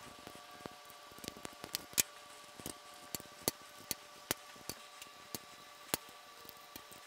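Socket wrench clicking as it backs out the oil pan bolts on a BMW R90/6 airhead: sharp clicks, irregular at first and then about two or three a second, over a faint steady hum.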